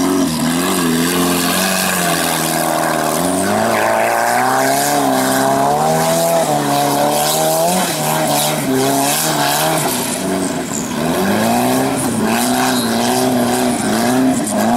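Off-road buggy's engine revving hard under load in deep mud, its pitch rising and falling repeatedly as the driver works the throttle.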